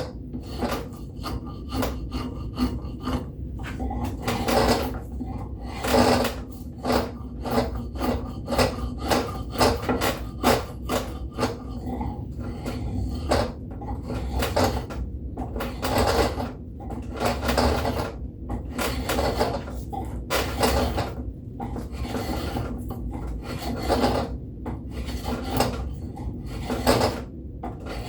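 Rasp strokes on a white oak axe handle, a run of short, rough scraping passes at about one or two a second as wood is filed away to shape the handle.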